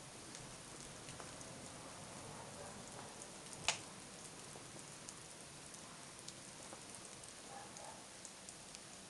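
Falling snow pattering on branches and ground: a faint, even hiss scattered with small ticks, and one sharper click about three and a half seconds in.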